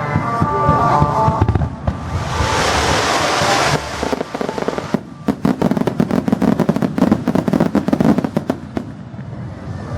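Starmine fireworks barrage: shells bursting in quick succession, then a dense run of sharp crackling pops over the second half. Music plays under the first second or so.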